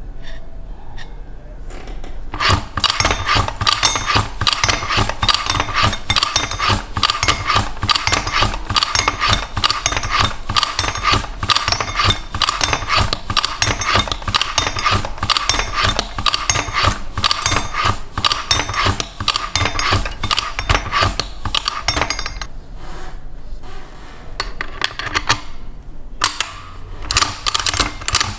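3x5 Kelsey Excelsior hand-lever tabletop letterpress being worked, a dense run of metallic clicks and clinks with a ringing metal tone, starting about two seconds in. It stops for a few seconds near the end, then starts again.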